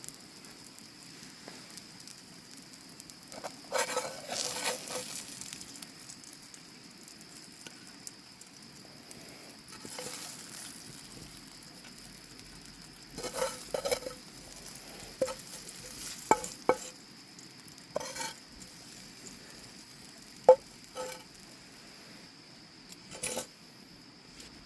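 Food sizzling in a pan over a campfire. A utensil scrapes and knocks against the pan now and then as it is stirred, with the sharpest knock about twenty seconds in.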